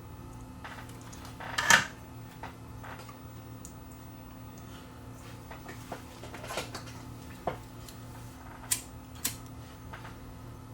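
Small workbench handling sounds: a brief louder scrape about two seconds in, then several light clicks and taps, over a steady low hum.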